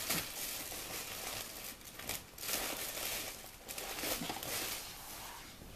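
Paper rustling and crinkling in uneven surges as scrapbook paper packs are handled and leafed through, searching for one pack.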